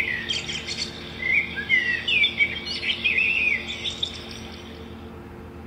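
Recorded baby-bird chirping played from the 'tweet tweet' sound button of an Usborne Garden Sounds board book: a quick run of high chirps and tweets that stops about four seconds in.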